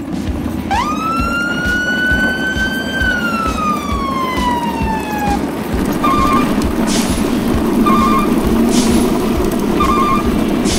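A siren-like tone rises quickly, holds, then slowly falls, over a steady low rumble. Then short clusters of beeps alternate with brief hisses, about one a second.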